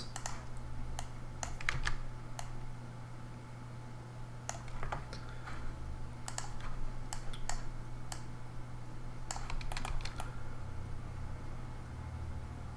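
Computer keyboard and mouse clicks, scattered and irregular, some in quick little clusters, over a steady low hum.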